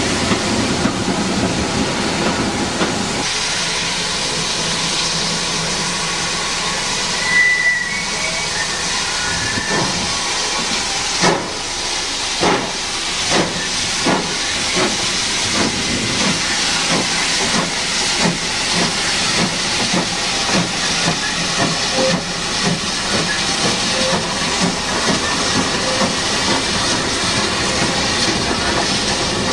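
GWR Earl Class 4-4-0 steam locomotive No. 9017 'Earl of Berkeley' hissing steam while standing, with a brief high whistle about seven seconds in, then starting away with chuffing exhaust beats that come faster and faster as it gathers speed.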